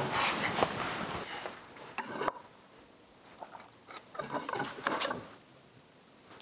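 Quiet scratching of a pencil marking a wooden rail, with light rubs and knocks as the wood and a steel rule are handled, and a sharp tap a little after two seconds in.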